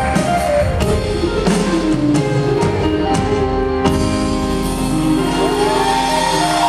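Live band playing the closing bars of a song, with drum hits, then ending on a held chord from about four seconds in.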